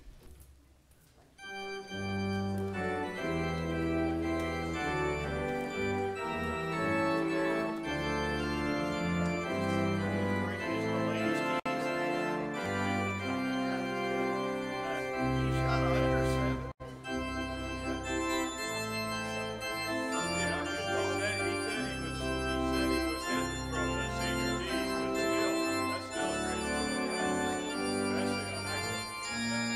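Church organ playing a postlude after the benediction: long held chords over a deep pedal bass, starting about a second and a half in.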